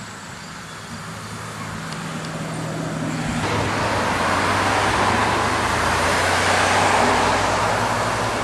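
A motor vehicle's engine running steadily. From about three seconds in it grows louder, along with a rising rushing noise.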